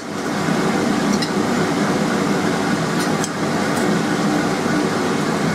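Steady whooshing of a running fan, with a few faint metallic clinks as a steel anvil ruler and its clip are handled on the anvil.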